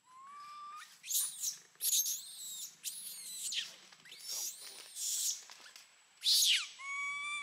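Macaque screaming: a run of about six high-pitched, arching screams in quick succession, with a thinner, nearly steady squeal at the start and again near the end.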